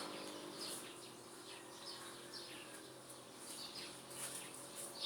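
Faint bird chirps: a scattered series of short, high, downward-sliding notes over a low steady hum.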